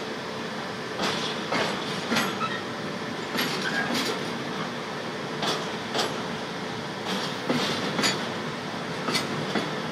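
Freight wagons of an intermodal container train rolling past close by: a steady rumble of wheels on rail, broken by sharp clacks that come in pairs about half a second apart every second or two as the wheels cross the track.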